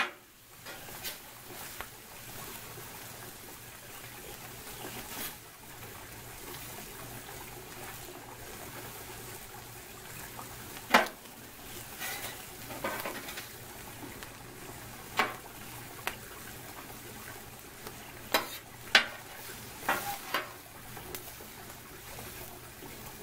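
Metal spatulas scraping and clinking now and then on a Blue Rhino 36-inch flat-top griddle, over a steady sizzle of sausage and egg frying on the hot plate.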